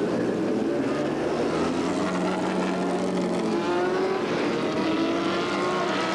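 Race car engines running: a steady engine note throughout, joined from about four seconds in by an engine note rising in pitch as it revs or accelerates.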